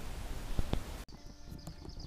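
Camera handling noise as a handheld camera is moved about: rustling noise with two sharp knocks. About a second in, an abrupt cut leads to a quieter track with faint rapid ticking.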